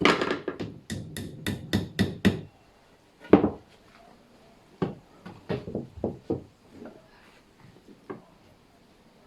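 Hammer tapping dowels into the back of a wooden shelf: a quick run of about eight light taps, then one loud knock, then a few scattered, lighter knocks.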